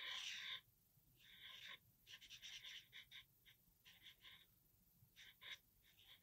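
Faint scratching of a thick black marker pen's nib across paper in about six short strokes with pauses between, drawing in eye detail.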